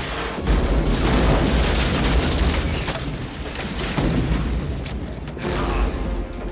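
Film explosions: deep booms with a long rumble and crackle, a fresh blast about half a second in and another about four seconds in.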